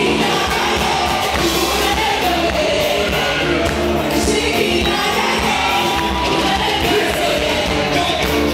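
Live gospel song: several singers on microphones sing over an amplified band that includes a keyboard, with a steady bass underneath.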